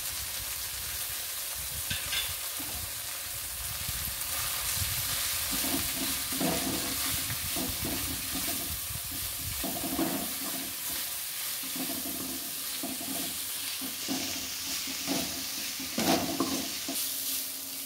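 Chopped moringa leaves sizzling steadily in oil in a metal kadai while a perforated steel ladle stirs and scrapes them against the pan in irregular strokes, more often from about five seconds in.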